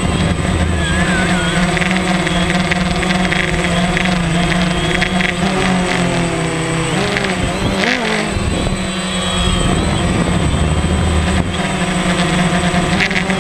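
DJI Phantom quadcopter's motors and propellers buzzing loudly, heard from the GoPro mounted on the drone itself. The pitch holds steady, then wavers and dips briefly about eight seconds in.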